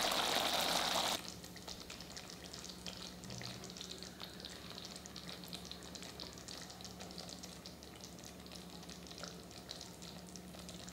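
Curry gravy simmering and sizzling in a pot, a soft crackle of many small pops. A louder hissing rush fills about the first second and cuts off abruptly. A faint steady low hum runs underneath.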